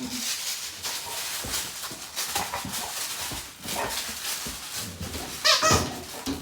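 Dogs scuffling over a new toy, with a few short yelps or whines and one loud, sharp high squeal about five and a half seconds in.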